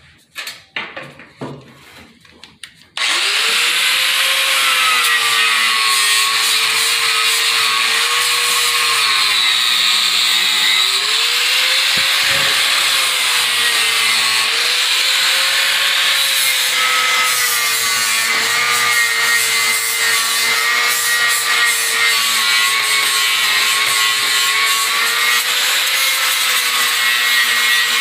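Handheld angle grinder starting about three seconds in and grinding the car's steel frame, its motor pitch sagging and recovering as it is pressed into the metal, after a few short knocks.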